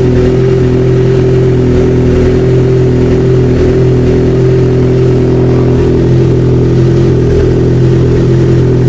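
Yamaha XJ6's 600 cc inline-four engine idling steadily, its tensioner freshly cleaned of the dirt that had been causing a strange noise: this is its normal running sound.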